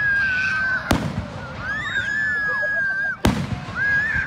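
Fireworks going off, with sharp bangs about a second in and again just past three seconds. Between the bangs come steady high whistles, each lasting a second or so, from whistling shells.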